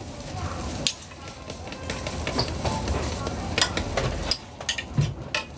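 Food stall clatter over a steady street background: a few sharp clicks and knocks of utensils and packaging as orders are handled.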